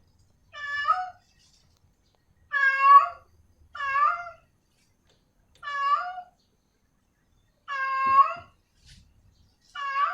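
Domestic cat meowing six times, short calls one to two seconds apart: a female cat in heat calling for a male.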